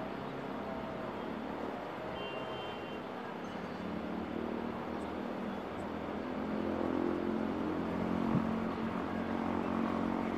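WDP4 diesel locomotive's EMD 16-cylinder two-stroke engine, droning steadily as the train approaches at speed, growing louder from about four seconds in.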